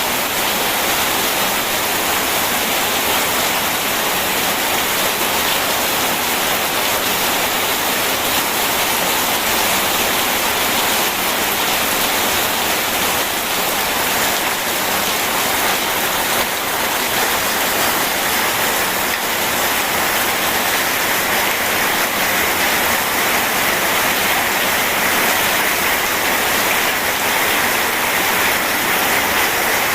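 Steady rain mixed with rushing river water: an even, unbroken hiss with no thunder.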